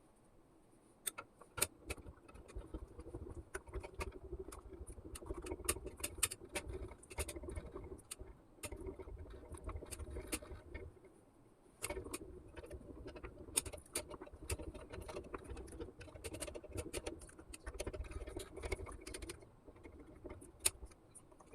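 Glass stirring rod clinking and tapping irregularly against a glass beaker, over a low rumble of handling noise. It pauses briefly about eleven seconds in.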